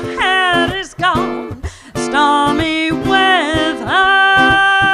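A woman singing a slow jazz vocal line with sliding, bending notes and one long held note near the end, over a strummed baritone ukulele.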